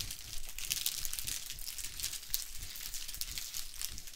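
Continuous fine crackling of potato chips and their bag while they are being eaten: dry crunching and crinkling close to the microphone.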